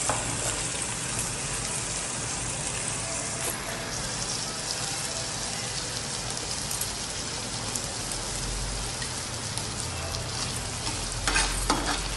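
Chopped onion, capsicum and garlic sizzling steadily in hot oil in a frying pan as the sauce base for paneer Manchurian cooks. A spoon stirs and scrapes the pan a few times near the end.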